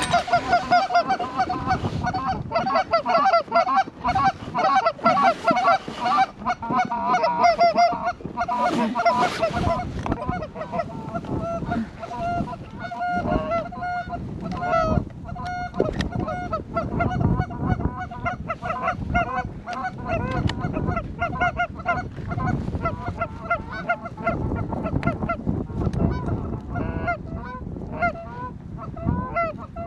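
Goose honking and clucking: many rapid, overlapping honks, busiest and loudest in the first third.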